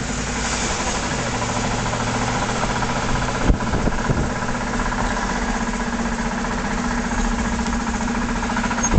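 1996 Range Rover P38 on the move with a steady whirring noise from the driveline, which goes with road speed rather than engine speed. The owner suspects the rear differential, perhaps ring-and-pinion teeth that have cracked or dropped, and also names the viscous coupling, drive shaft or a wheel bearing as possible causes. A single knock sounds about three and a half seconds in.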